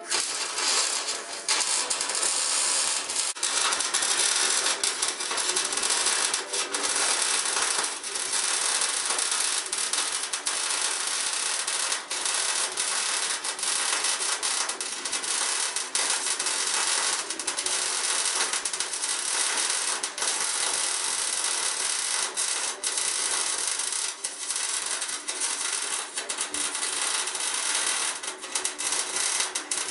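Electric arc welding on steel frames: a steady crackling sizzle with dense sputtering clicks from the arc, broken by a few brief pauses.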